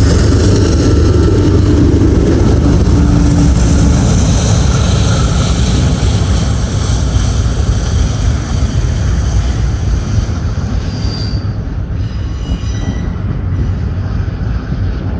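Double-stack container cars of a long CSX intermodal freight train rolling past, a loud continuous rumble of steel wheels on rail. The engine note of the just-passed locomotives fades out over the first few seconds, and from about eleven seconds in thin, high wheel squeals come in.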